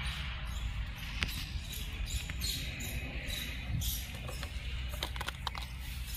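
Wind rumbling on the microphone of a hand-held camera outdoors, with scattered light clicks and taps.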